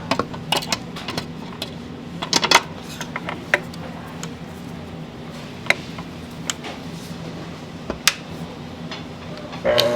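Scattered clinks and taps of kitchen utensils and tools, the loudest cluster about two and a half seconds in, over a steady low machine hum. Music comes in just before the end.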